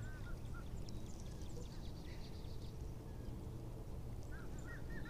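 Steady wind rumble on the microphone, with a few short chirping bird calls near the start and again near the end.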